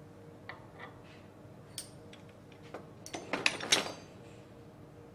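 Metal tools and parts knocking on a wooden workbench: a few light clicks, then a quick cluster of sharp metallic clatters a little past the middle as the bearing puller is set down and the pulled bearing is freed.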